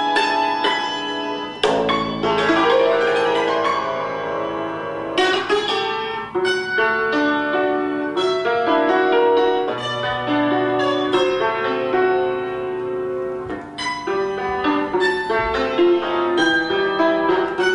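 Concert cimbalom (Romanian țambal) played solo with hammers: fast runs of struck notes that ring on over one another. A deep bass note is struck about two seconds in, followed by a quick rising run.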